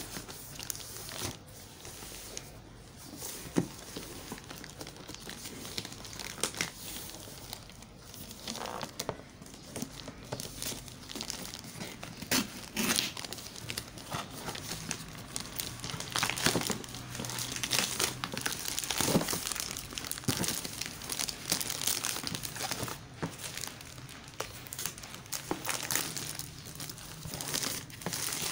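White plastic courier bag crinkling and rustling as it is pulled and torn open by hand, in irregular crackles that grow busier and louder about halfway through.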